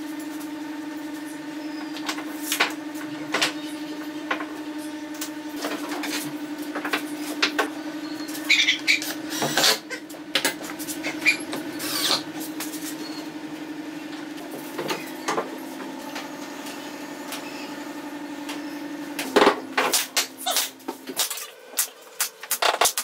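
A steady motor hum runs while wooden parts are knocked and handled, with scattered sharp knocks and a quick flurry of them near the end. The hum stops about 21 seconds in.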